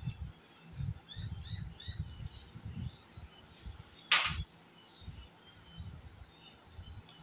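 Close eating sounds: soft, irregular low thumps from chewing and from a hand mixing rice on a plate, with small birds chirping repeatedly in the background. About four seconds in there is a brief loud hiss, the loudest sound.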